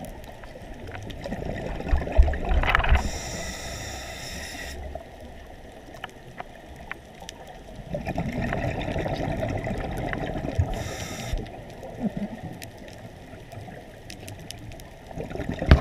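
Scuba regulator breathing underwater: hissing inhalations alternating with gurgling rushes of exhaled bubbles, twice over.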